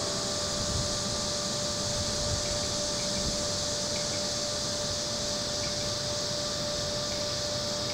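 One bell note from the clock-tower chimes hanging on in a pause between phrases of the tune, over a steady high hiss and a low rumble.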